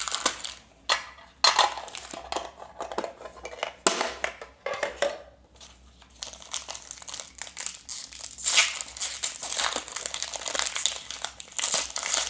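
Crinkly plastic and foil packaging of a Pokémon card tin and its booster packs being handled and opened, rustling in irregular bursts. A few sharp knocks come in the first few seconds, and the rustling is densest over the last four seconds.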